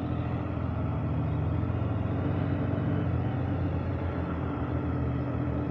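Motorcycle engine running steadily while riding, heard from the rider's seat, with a rush of wind noise over it.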